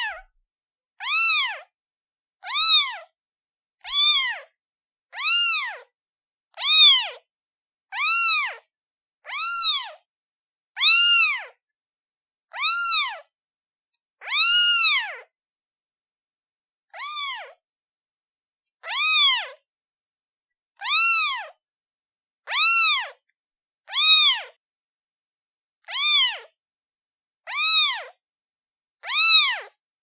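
A newborn kitten, a day old, meowing over and over to call its mother: high, thin cries that each rise and then fall in pitch, about one every one and a half seconds, with a slightly longer pause a little past halfway.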